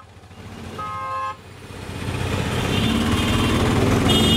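Dense street traffic: a vehicle horn honks once briefly about a second in, then engine noise from the surrounding motorbikes and cars swells and grows steadily louder, with a higher-pitched horn sounding near the end.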